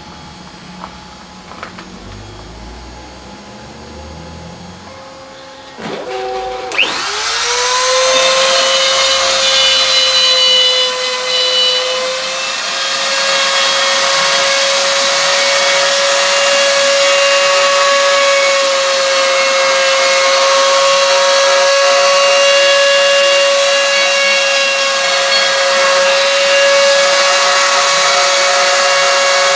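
CNC spindle motor spinning up about six seconds in, its whine rising quickly and then holding a steady high pitch with a hiss, after a few quiet clicks.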